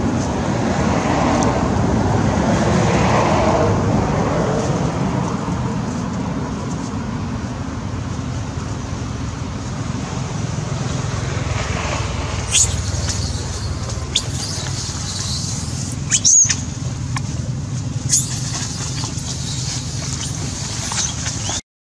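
Steady outdoor background rumble like distant road traffic, swelling over the first few seconds and then settling. Thin high-pitched squeaks come and go in the second half.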